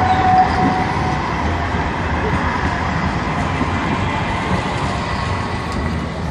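Street tram running on its rails: a steady rumble with a thin, steady high whine, growing slightly quieter toward the end.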